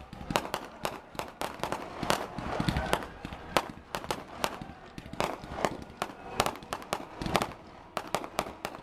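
Fireworks display: aerial shells bursting in a quick, uneven run of sharp bangs and crackles, several a second.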